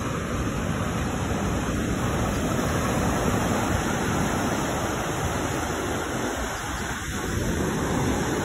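Steady rushing noise of ocean surf and wind, with no distinct events.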